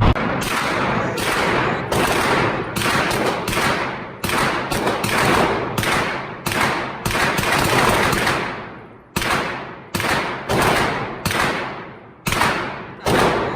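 Gunfire at a shooting range: a rapid string of about two dozen shots at an uneven pace, some close together, each shot trailing off in a long echo.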